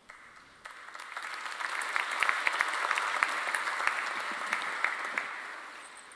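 An audience applauding, swelling over the first couple of seconds and then fading away near the end.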